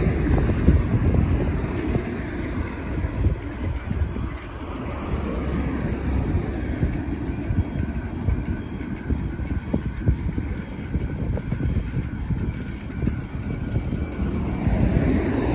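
Low rumble of wind buffeting the microphone and road noise from a vehicle moving along a road at night, with traffic around it. Near the end a steady humming tone grows louder.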